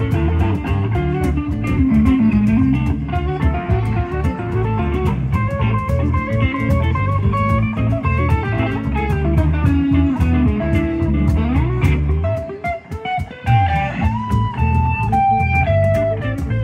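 Live blues-rock band playing an instrumental passage, with an electric guitar lead over bass guitar and drum kit. About twelve seconds in the bass and drums drop away briefly, then the guitar plays a falling run of held high notes.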